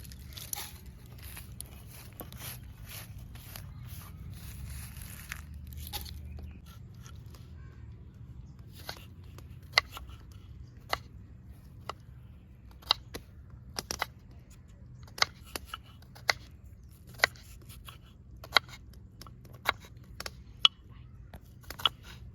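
Onions being cut with a knife on a board: sharp cutting strokes, roughly one a second, after a few seconds of rustling and tearing at the start.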